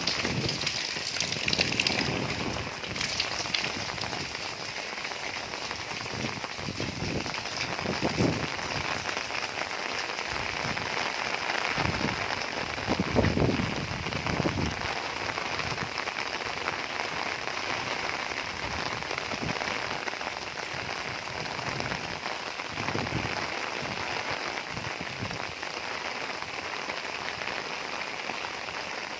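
Heavy rain pouring steadily, with occasional heavier low splashes; the loudest comes about 13 seconds in.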